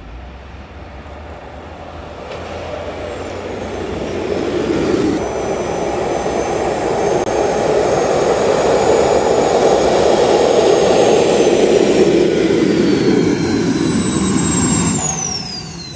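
A J-10 model jet's engine: a high whine over a rush of air that builds for several seconds and holds. Near the end the whine falls in pitch and the sound drops away.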